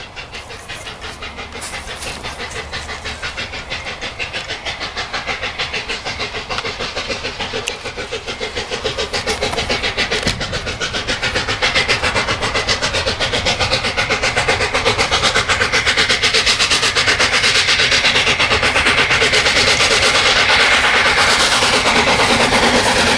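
Steam locomotive exhaust beating in a fast, even rhythm, growing steadily louder as the engine draws near.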